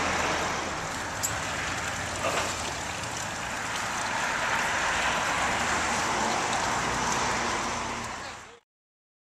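Steady outdoor background noise with a light click about a second in, fading out to silence near the end.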